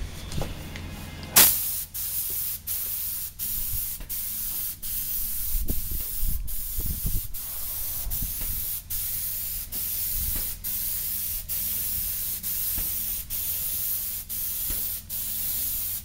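Airmix (air-assisted airless) spray gun fed by a Binks Raptor pump, spraying paint in a steady high hiss. The hiss starts sharply about a second and a half in and breaks off briefly about every two-thirds of a second, over a low steady hum.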